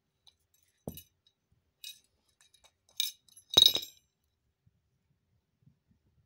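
A small plastic rabbit toy with a bell inside clinking and clattering as a rabbit knocks it about. There is a soft thud about a second in and a couple of light clicks, then one loud jingling clatter about three and a half seconds in.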